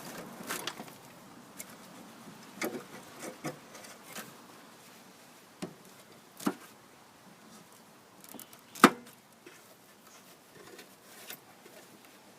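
Scattered clicks, knocks and scrapes of hands and tools working at packed debris around a walk-behind mower's drive axle, with one sharper knock about nine seconds in.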